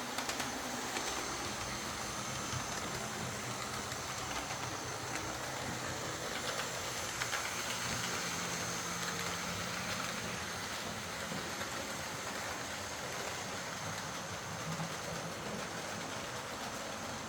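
Lima OO gauge Class 55 Deltic model locomotive running on track after a clean and service, its motor giving a steady high whine along with the rolling noise of the wheels and a few light clicks.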